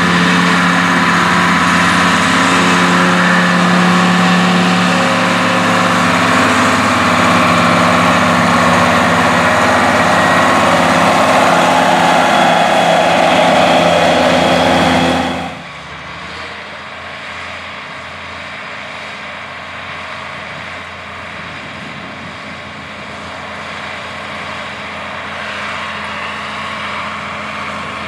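Case tractor engine running steadily under load while pulling a disc mower-conditioner, loud and close. About halfway through the sound drops sharply to a quieter, steady engine sound from another Case tractor pulling a planter.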